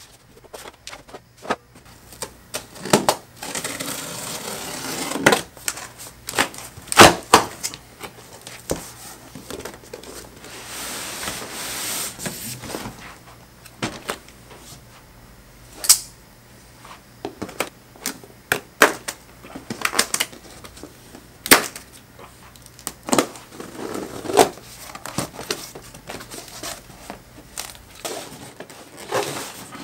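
Cardboard shipping boxes being handled and unpacked: rustling and scraping of cardboard and flaps, broken by scattered sharp knocks and thumps.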